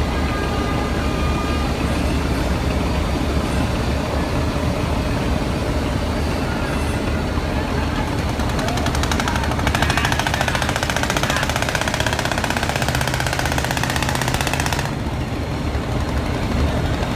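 Large river ferry's diesel engine running with a steady low rumble over churning propeller wash. About ten seconds in, a fast mechanical rattle joins it for about five seconds and then cuts off suddenly.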